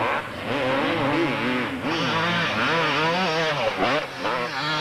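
Two-stroke 125–250cc motocross bike engines racing, the revs rising and falling quickly and repeatedly as the throttle is worked.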